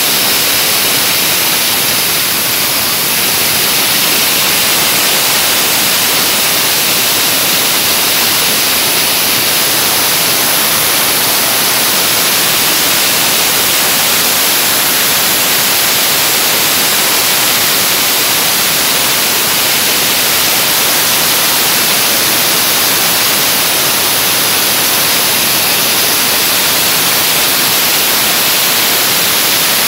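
Dry ice blasting gun jetting compressed air and dry ice pellets onto stainless steel to strip limescale: a loud, steady, high hiss.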